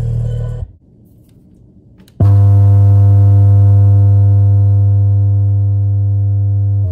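Low bass tones from a bass guitar amplifier: one tone cuts off under a second in, and after a short lull a new steady low bass tone starts suddenly and holds, fading slightly.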